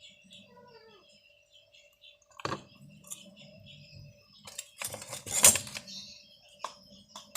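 Kitchen utensils and dishes clinking and clattering as cough-remedy ingredients are handled, with a sharp knock about two and a half seconds in and a louder clatter around five seconds in.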